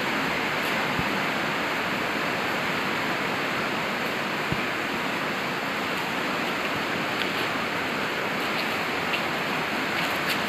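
Heavy rain falling: a steady hiss with a few faint ticks.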